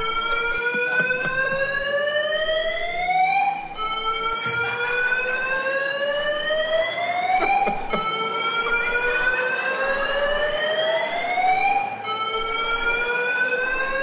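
Alarm sounding a slow rising whoop: a loud tone that climbs in pitch for about four seconds, drops back and climbs again, repeating four times.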